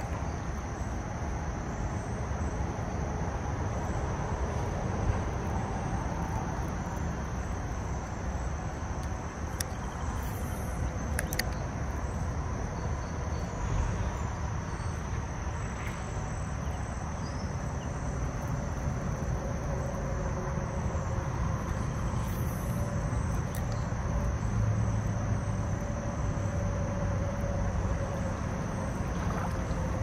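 Insects trilling steadily in one high, unbroken note over a low, steady rumble.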